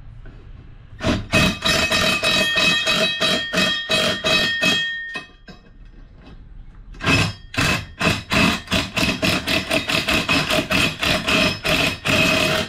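Cordless impact driver hammering bolts down through a long socket extension in two long bursts, with a short pause between them. The steel wheel rim that the bolts go into rings with a steady metallic tone under the rapid hits.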